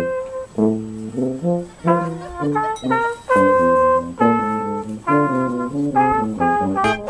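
A small brass band of tuba, trumpets and trombone, with a clarinet, playing a tune together in short phrases of notes, some held for about a second.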